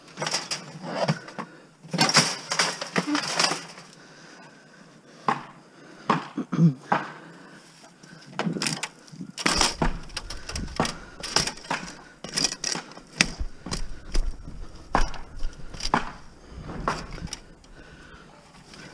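Scrap metal being handled and loaded: a run of irregular clanks, knocks and rattles, with a low rumble joining about halfway through.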